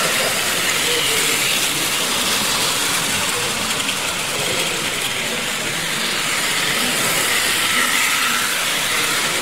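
Playcraft model electric trains running round the layout: a steady whirr of small motors and wheels on the track, swelling to a louder whine as a train passes close near the end.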